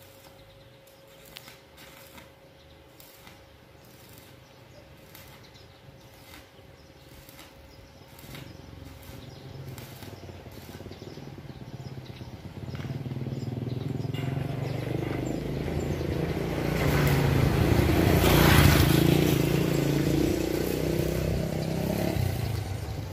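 A motor vehicle engine passing by: it grows louder from about eight seconds in, is loudest about three-quarters of the way through, then fades.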